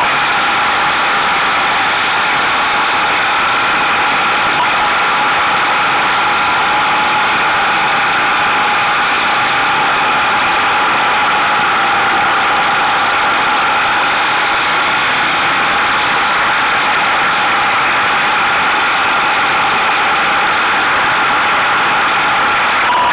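Buell motorcycle's engine running at a steady cruise, heard from a camera on the mirror stalk together with wind and road noise; the pitch holds steady with no revving.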